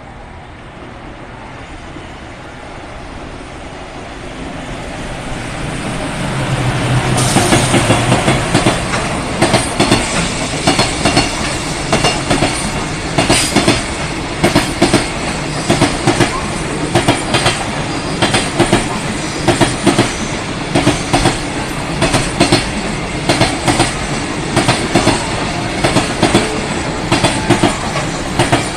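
JR Freight container train approaching and passing close by: a low hum builds until about seven seconds in as the locomotive passes. Then a steady, regular clickety-clack follows as the container wagons' wheels cross the rail joints.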